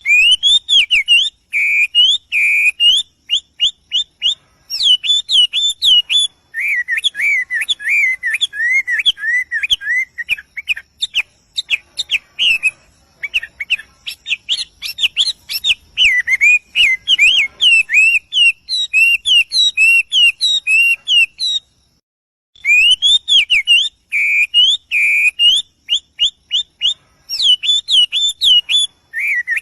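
Small bird chirping and twittering in quick, repeated whistled notes. The calls stop briefly about three-quarters of the way through, then the same sequence starts again.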